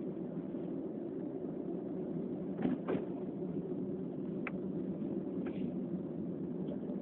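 Steady low background hum, with two short knocks close together a little under three seconds in and a few fainter ticks later.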